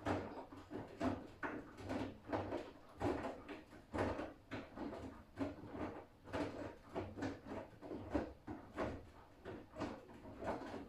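Siemens iQ500 front-loading washing machine turning its drum in the Delicates/Silk wash, wet laundry tumbling and sloshing in a steady run of soft irregular thuds and swishes.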